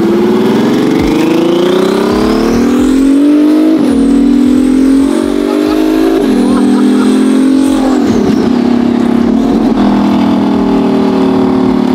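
Twin-turbocharged Ferrari F12's V12 accelerating hard. Its pitch climbs and drops back at three upshifts, about four, six and eight seconds in, then runs steadier. A high whistle rises over the first pull and falls away.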